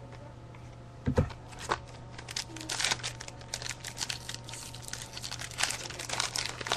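Trading-card pack wrapper crinkling and cards being handled, with many short crackly rustles and one dull thump about a second in.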